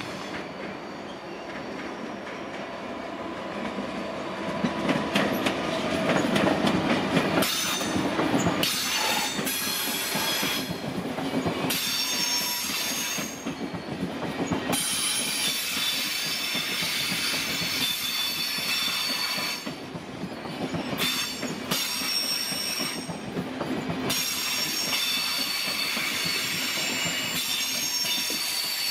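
SBB Re 460 electric locomotive hauling double-deck IC2000 coaches slowly through curved station pointwork. The wheels squeal in several high, steady tones over the rumble and clatter of the train, which grows louder over the first five seconds.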